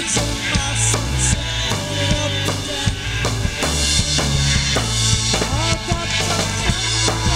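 Live rock band playing: a drum kit keeping a steady beat under sustained bass-guitar notes, with electric guitars and synthesizer keyboards.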